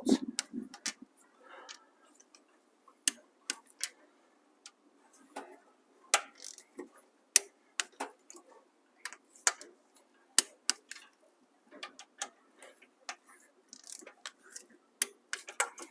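Torque wrench clicking as the HEMI V8's smaller cylinder-head bolts are tightened to the final torque setting of 25: sharp, irregular clicks, some in quick little runs, from the wrench's ratchet and its release click.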